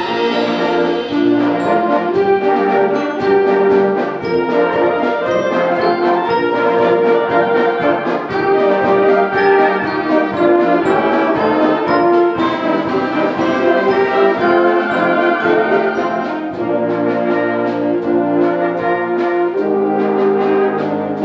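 High school concert band playing a full-ensemble passage, with sustained brass chords out front and regular percussion strikes underneath.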